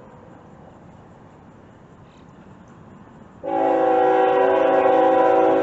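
Locomotive air horn: after a few seconds of low background noise, a loud chord of several notes starts abruptly about three and a half seconds in and is held steady.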